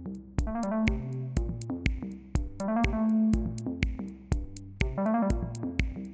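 Electronic background music with a synthesizer melody, bass and a drum-machine beat of about two hits a second.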